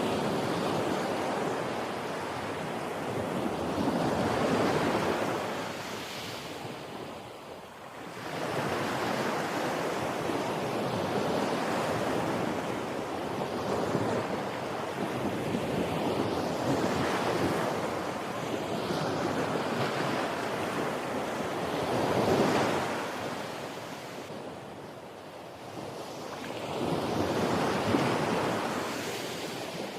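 Ocean surf: waves washing in and drawing back, the sound swelling and falling away every few seconds.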